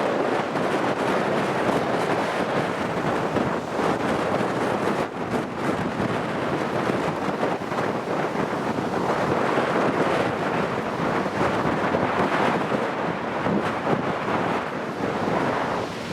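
Strong, gusting wind buffeting the microphone over the wash of waves, a continuous noise that swells and dips without a break.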